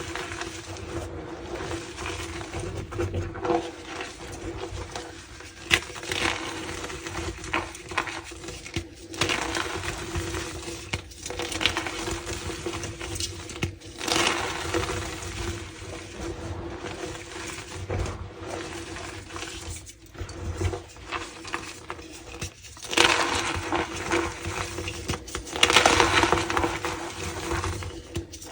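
Dyed gym chalk being crushed and crumbled, with repeated crunching, crackling and squeaking, getting louder about two-thirds of the way through and again near the end.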